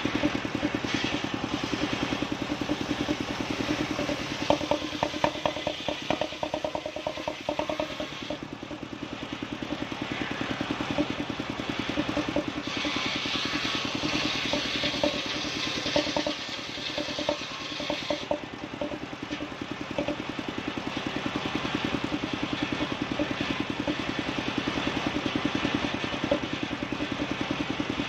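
Engine-driven circular saw bench running steadily while ripping Bayur wood into rafter boards. The engine's pulse runs throughout, and the blade's hiss in the cut grows louder for several seconds around the middle. A run of rattling clicks comes about four seconds in.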